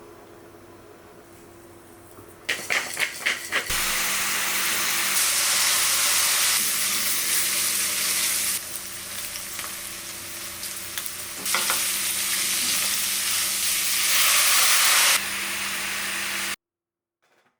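Food frying in hot oil in a frying pan: a few sharp crackles about two and a half seconds in as ingredients hit the pan, then a loud, steady sizzle. The sizzle drops for a few seconds midway, swells again and cuts off suddenly near the end.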